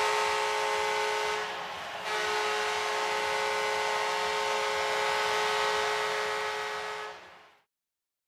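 Arena goal horn blaring over a cheering crowd, marking a home-team goal. The horn breaks off briefly a little over a second in, starts again, and everything fades out after about seven seconds.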